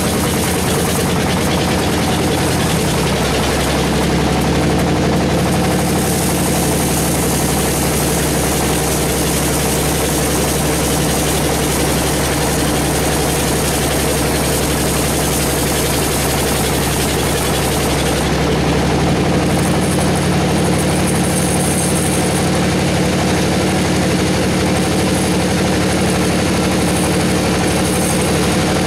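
Band sawmill machinery running steadily, a motor-like hum over a constant hiss; the low hum changes pitch about three seconds in and again about two-thirds of the way through.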